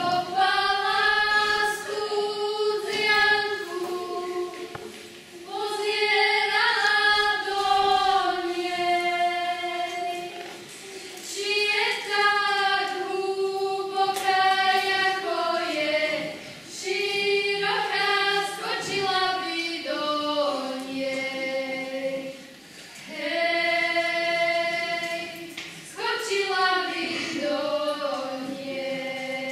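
A small group of girls singing a song together unaccompanied, in phrases of a few seconds with short breaks for breath between them.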